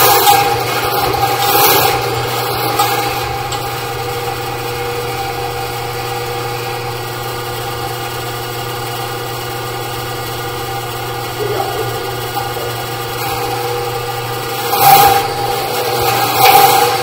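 Ridgid K-1500 sectional drain machine running with a steady motor hum as it spins its cable in the drain. There are a few louder bursts, one early and two near the end.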